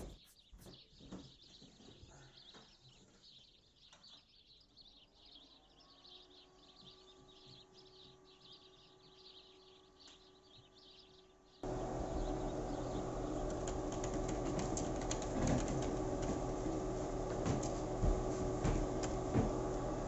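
Ceiling fan-chandelier motor spinning up: a hum that rises in pitch and then settles to a steady tone. About twelve seconds in, a much louder steady noise starts suddenly, with the hum still under it.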